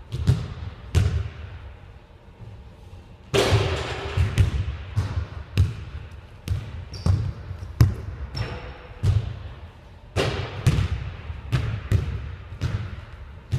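Basketballs bouncing on a hardwood gym floor in an irregular dribbling rhythm, each bounce echoing around the large hall. A louder impact comes about three and a half seconds in.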